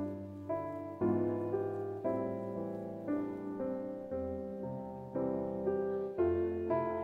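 Soft background piano music: gentle chords and notes struck about once or twice a second and left to ring.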